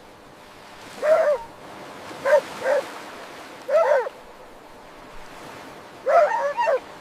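A dog barking in short bursts, a few barks at a time with pauses between.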